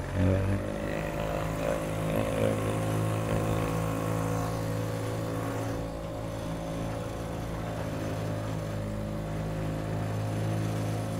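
Mercury 2.5 hp single-cylinder two-stroke outboard running steadily at a constant pitch, after a brief change in pitch and level at the very start.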